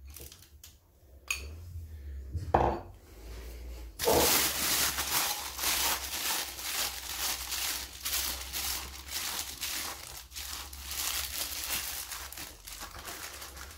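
Thin plastic piping bag crinkling loudly and continuously as it is handled and twisted closed around melted chocolate, starting about four seconds in. Before it, a couple of light knocks and clinks from the bowl and glass.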